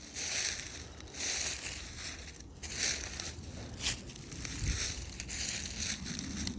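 Crunching, rustling noise coming in short swells about once a second, like footsteps on crisp ground or gravel.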